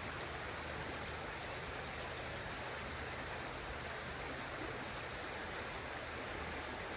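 Steady rush of a small trout stream's flowing water.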